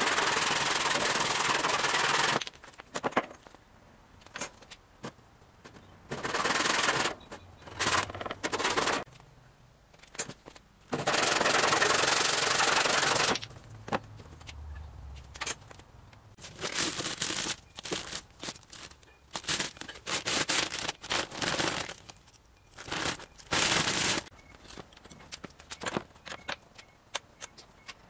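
Handsaw cutting through a round wooden pole to slice off discs. The saw strokes come in runs, some continuous for a couple of seconds and later many short strokes, with pauses between.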